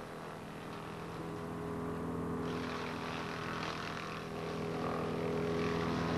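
Chippet 30DH wood chipper's 30 hp Kubota four-cylinder water-cooled diesel engine running steadily, slowly growing louder. About two and a half seconds in, a rougher hissing, crackling noise joins the engine.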